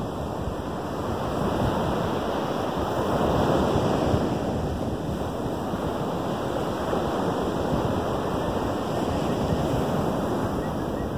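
Lake Michigan surf: waves breaking and washing up a sandy beach in a steady rush, swelling a little about three to four seconds in.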